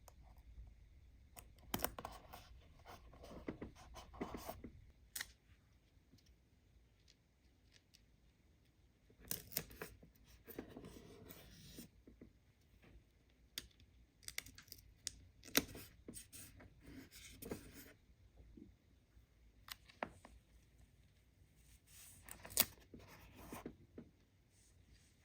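Toy packaging being opened and handled by hand: scrapes, rustles and sharp clicks in several short spells with quieter pauses between.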